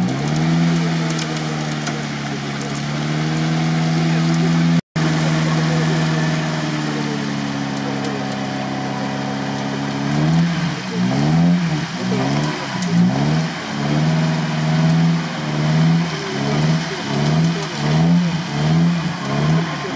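UAZ Patriot off-roader's engine revving hard as it pushes through a deep mud bog. The revs climb and hold at first, break off for an instant just under five seconds in, then from about halfway through surge up and down roughly once a second as the SUV labours against the muddy bank.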